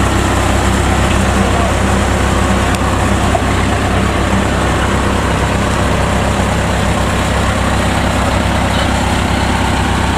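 Kubota DC93 combine harvester's diesel engine running steadily as the tracked machine drives onto a narrow ferry barge.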